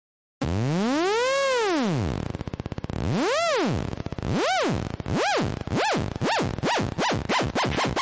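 Synthesized electronic ringtone: a buzzy tone that swoops up and then down in pitch, starting about half a second in. Each swoop is shorter than the last, so the swoops speed up into a rapid warble.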